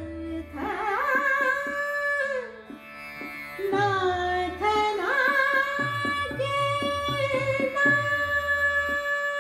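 A woman singing an Indian classical vocal line in long sliding, ornamented phrases over a steady tanpura drone, with repeated low percussion strokes keeping time.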